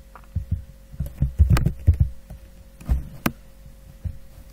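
Typing on a computer keyboard: an irregular run of clicks and dull thumps, busiest in the middle, with one sharper click about three seconds in, over a faint steady hum.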